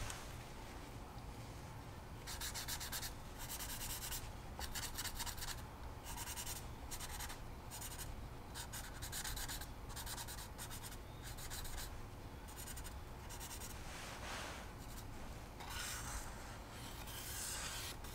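Felt-tip permanent marker writing on the label of a plastic gallon jug, a series of short strokes with brief pauses between them.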